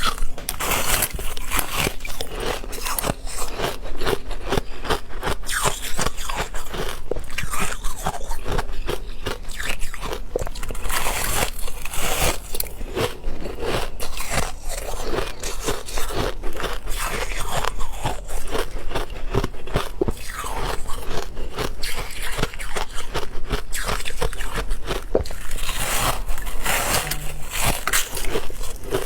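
A person biting and chewing ice close to the microphone: many sharp crunches and cracks in quick, irregular succession.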